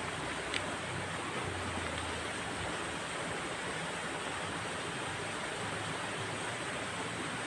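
Steady, even rush of flowing water, with a faint click about half a second in.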